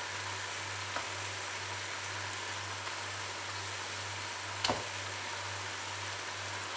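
Onion-tomato egg masala sizzling steadily in a hot kadai, with a faint click about a second in and a sharper tap a little past halfway.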